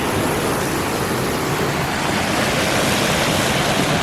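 Steady rushing of a forest stream's water.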